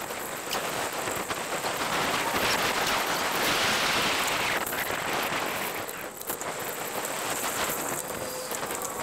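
Wind and rolling tyre noise from a bicycle riding along an asphalt street, a steady hiss that swells to its loudest for a couple of seconds about two seconds in.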